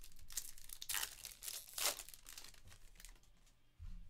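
Foil trading-card pack wrapper being torn open and crinkled in the hands, loudest about one second and two seconds in. A soft low thump near the end.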